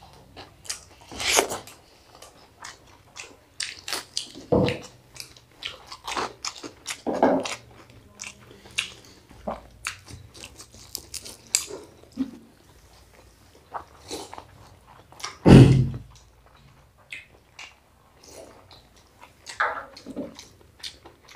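Close-up eating sounds: crisp fried battered fritters (beguni and cauliflower pakoras) being bitten and crunched, with chewing and many small wet mouth clicks. A single louder thump comes about two-thirds of the way through.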